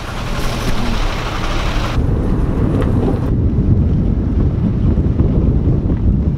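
A moving car's engine and road noise. About two seconds in the sound turns duller, leaving mostly a heavy low rumble.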